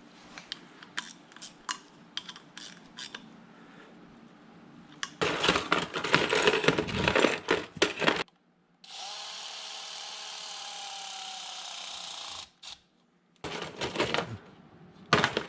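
Hand tools and parts clinking and rattling while small items are fitted to the engine, rising to about three seconds of loud, dense clatter. After a brief gap, a small power tool's motor runs with a steady whine for about four seconds, followed by more clatter near the end.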